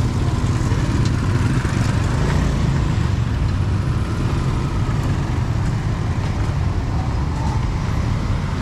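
Steady rumble of street traffic.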